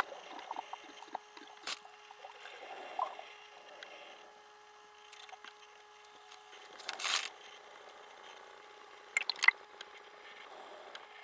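Underwater sound picked up through the camera: low water noise and a faint steady hum that stops about halfway, scattered sharp clicks, and a short loud rushing burst about seven seconds in.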